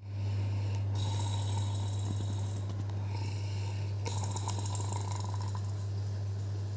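Elderly woman snoring loudly in deep sleep: two long snoring breaths about three seconds apart, over a steady low hum.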